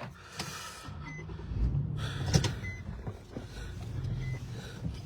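Car engine idling with a steady low hum, a few clicks and knocks, and a faint short high beep repeating about every second and a half.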